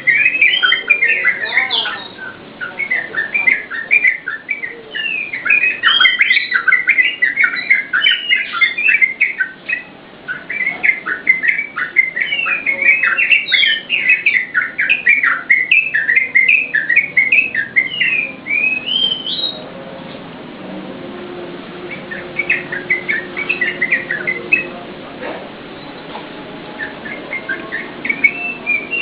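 Yellow-vented bulbul (trucukan) singing a fast, chattering run of short rising and falling notes, nonstop for nearly twenty seconds. After a quieter gap there is a brief burst, and the song picks up again near the end.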